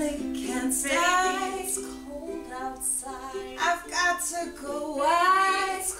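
Women singing the opening lines of a duet with ukulele accompaniment.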